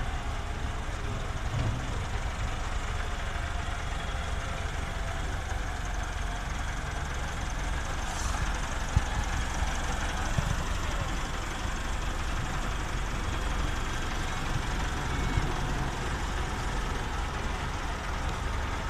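Farm tractor diesel engines running steadily, a low even drone, with a couple of brief knocks around the middle.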